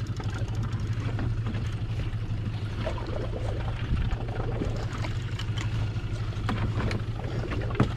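Boat's outboard motor running steadily at low trolling speed, a continuous low hum, with wind and water noise over it.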